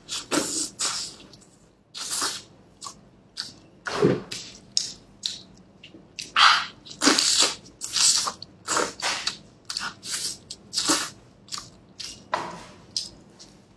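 Close-up eating sounds of a person biting, chewing and tearing saucy braised meat off the bone with gloved hands: a steady string of short, irregular wet smacks and bites.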